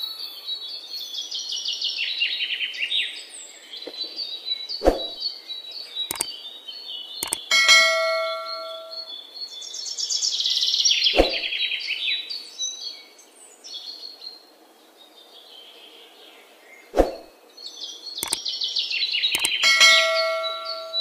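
Rose-ringed parakeet calling in runs of rapid, falling squawks, three times. Sharp clicks and a bell-like ding sound twice, once near the middle and once near the end, from a subscribe-button sound effect.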